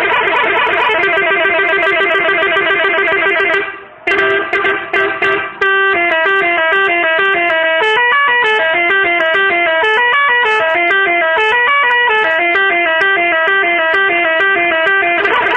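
Angkot minibus telolet horn, a multi-tone musical horn, playing a fast run of rapidly repeated notes, breaking off briefly about four seconds in, then playing a tune of short stepping notes.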